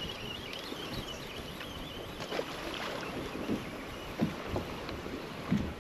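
Wind on the microphone and water lapping against a bass boat's hull, with a few short knocks on the boat, the sharpest about four seconds in. A faint high warbling tone fades out in the first second or so.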